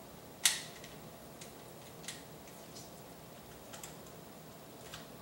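Light plastic clicks from a body tape measure being handled and adjusted around the waist: one sharper click about half a second in, then a few fainter ones.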